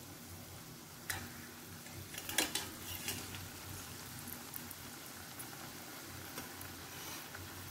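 Chakli deep-frying in hot oil in a steel pan, a faint steady sizzle. A few sharp clicks of a metal flat spoon against the pan come between one and three seconds in, the loudest about halfway through that stretch, as another chakli is slid into the oil.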